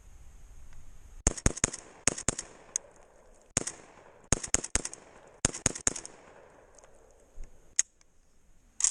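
Saiga-12 semi-automatic 12-gauge shotgun firing low-brass birdshot loads from a 12-round drum: about a dozen shots in quick strings of two to four over about five seconds, the gun cycling each round. Two more sharp clicks or knocks come near the end.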